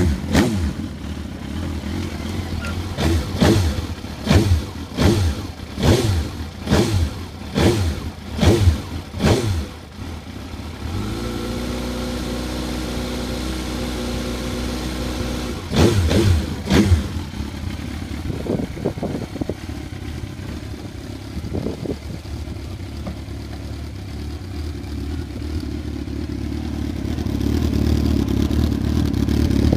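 Suzuki GSX-R1000 K3's inline-four engine, through an aftermarket Akrapovič exhaust can, being revved at a standstill: about ten quick throttle blips in the first ten seconds, then a steady idle. Two more revs come a few seconds later, then a few small blips, and it settles back to idle.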